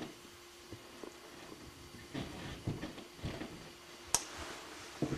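Quiet room tone with a faint steady hum, a few soft noises in the middle and one sharp click about four seconds in.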